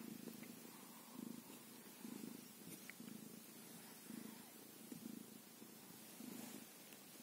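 Tabby cat purring faintly while being stroked on the head, the purr swelling and fading about once a second.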